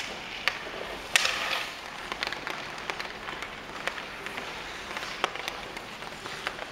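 Ice hockey stick and puck on an indoor rink: three sharp cracks in the first second and a half, the last trailing a short hiss, then a run of light, irregular taps as the stick blade handles the puck, over the scrape of skates on the ice.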